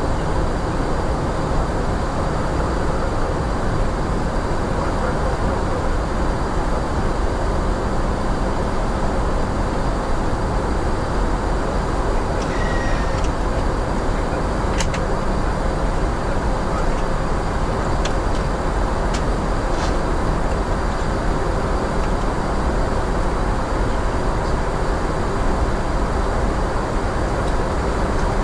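Steady rushing flight-deck noise of an Airbus A350-900 in flight, airflow and engine hum with a faint constant tone, unchanging in level. A few faint clicks come through about halfway in.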